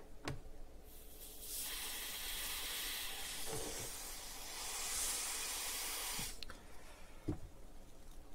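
Aerosol freeze spray hissing in one continuous burst of about five seconds. It is chilling a small electrolytic capacitor on a network switch's power supply board to find the failing cap, with a few faint clicks before and after.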